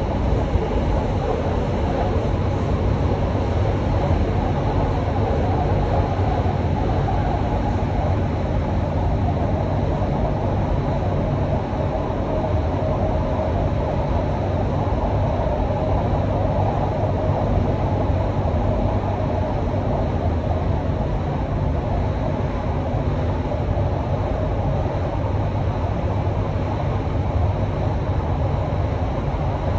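Doha Metro train running at speed through an underground tunnel, heard from inside the front carriage: a steady, loud rumble and rush of wheels on rails.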